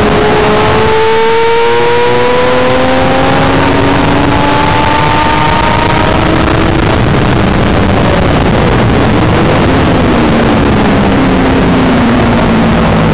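Triumph Daytona 675's three-cylinder engine heard on board under hard acceleration, its pitch climbing steadily for several seconds, then falling back near the end as the bike heads into a corner. A heavy rush of wind noise runs underneath.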